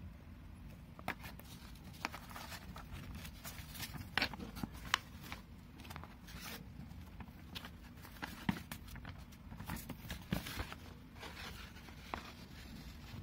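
Large folded paper lyric sheet being unfolded and handled: irregular rustles and crinkles with sharp little clicks, over a steady low hum.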